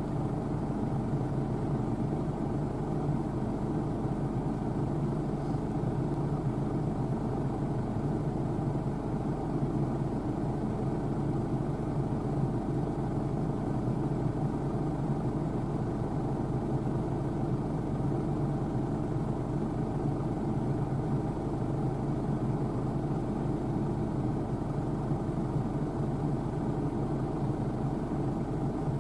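New Holland TC5.80 combine harvester running steadily, its engine and machinery making a constant, unchanging drone.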